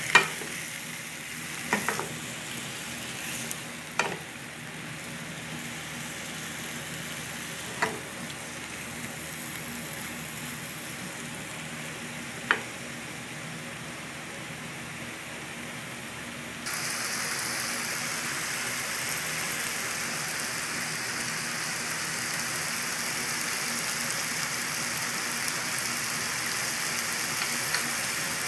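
Summer squash wedges sizzling as they fry in a nonstick pan, with a wooden spoon knocking against the pan a few times in the first half. About halfway through the sizzle suddenly gets louder and hissier.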